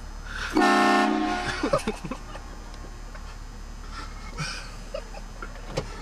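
Train horn blasting once for about a second, a loud chord of several steady tones sounding together.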